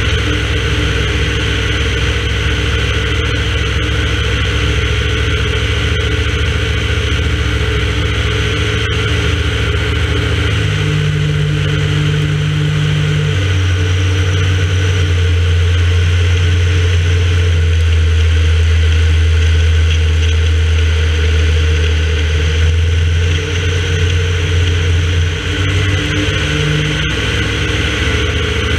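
Light aircraft's piston engine and propeller droning steadily, with wind rush over the airframe, on final approach to a runway. The low engine note shifts in pitch a few times, about a third of the way in and again later, as power changes during the descent.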